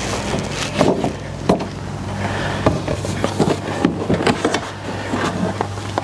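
Cardboard packaging of a Dyson hair dryer being handled close to the microphone, with the outer sleeve sliding off the inner box: scattered scrapes, taps and knocks over a steady low hum.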